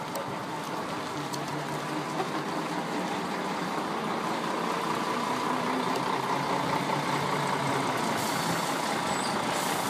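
Single-deck bus's diesel engine running as the bus moves off slowly, the sound growing gradually louder. A hiss comes in near the end.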